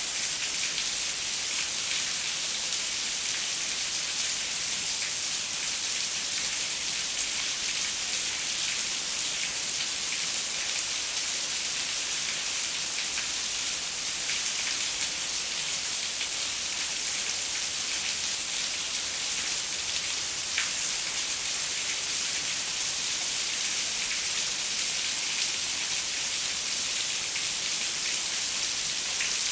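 Steady rain falling on a window: an even hiss with scattered sharp drop ticks.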